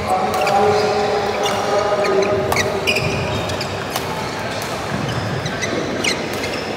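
Badminton play in a large hall: sharp pops of rackets striking shuttlecocks several times, spread irregularly, with short shoe squeaks on the court floor, over a reverberant hall murmur.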